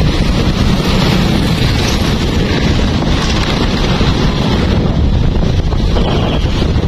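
Steady wind rumble buffeting the microphone of an open vehicle moving down a city street, with traffic noise underneath.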